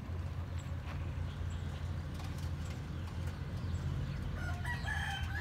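A rooster crowing near the end, over a steady low hum and faint small-bird chirps.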